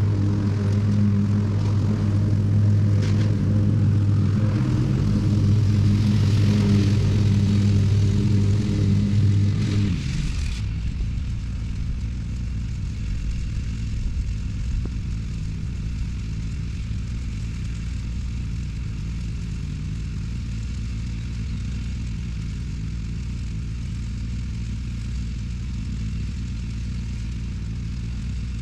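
Ride-on lawn mower engine running steadily at mowing speed, loud for the first ten seconds, then dropping suddenly about ten seconds in to a quieter, steady drone.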